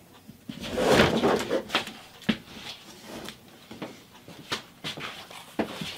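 A large whiteboard being handled and carried off by hand: a rustling scrape about a second in, then a few scattered knocks and bumps.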